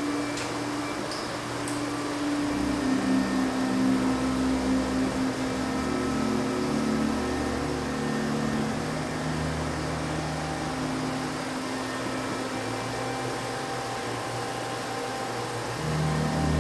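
Layered low electronic drones from a gallery sound installation, held tones that shift in pitch every few seconds over a steady hiss. A few faint clicks near the start.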